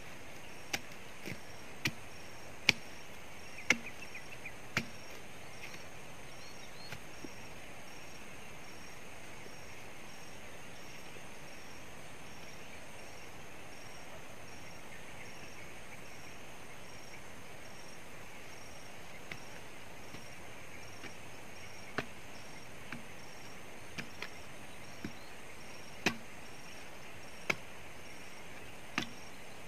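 Sharp chopping strikes of a hand tool against the base and roots of a tree stump being grubbed out. About seven come in the first few seconds, there is a long pause in the middle, and another irregular run of strikes follows near the end.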